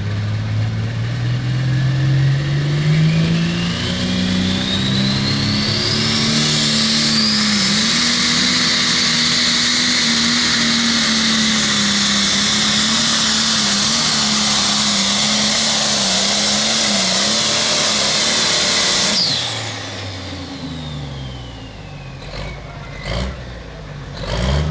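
Case IH Limited Pro Stock pulling tractor's turbocharged diesel engine under full-throttle load. The engine note climbs as the turbo whistle rises, then holds at high revs. Near the end the throttle is cut: the engine drops off and the turbo whine falls away, followed by a few sharp knocks.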